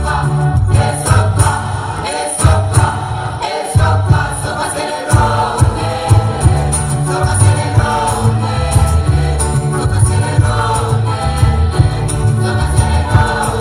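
School choir singing in harmony, with a deep bass line under the voices that drops out briefly about three and a half seconds in.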